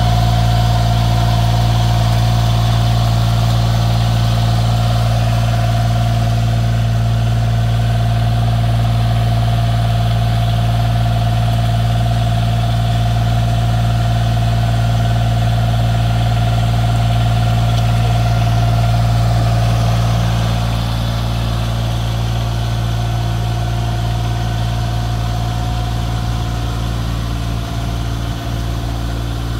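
Iseki PRJ83 eight-row rice transplanter's engine running steadily with a constant low hum, easing slightly quieter about two-thirds of the way through.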